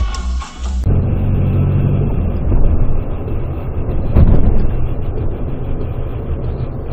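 Steady low rumble of a car's engine and tyres while driving, recorded by a dashcam inside the car, with a sharp thump about four seconds in.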